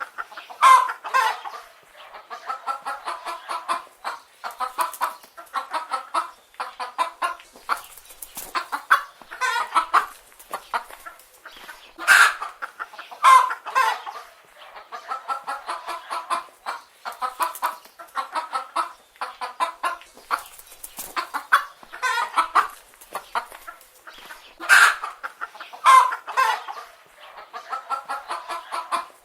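Several chicken hens clucking continuously in short, rapid calls, with a louder, sharper squawk every several seconds.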